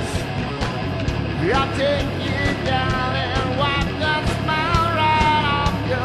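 Heavy metal band playing live: a steady drum beat and distorted electric guitars under a melody line that slides in pitch, with one rising slide about a second and a half in.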